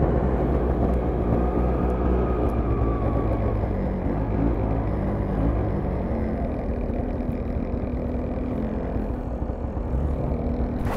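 Arctic Cat Blast snowmobile's single-cylinder two-stroke engine running steadily while the sled is ridden along the trail, heard from on board.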